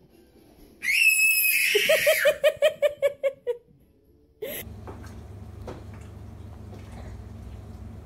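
A young child gives a high squeal, then laughs in a quick run of giggles. After a cut, a steady low hum with a few faint taps.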